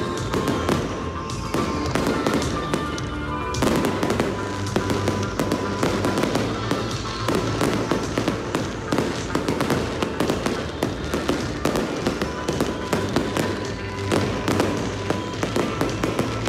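A fireworks display: aerial shells bursting and crackling in rapid, overlapping succession.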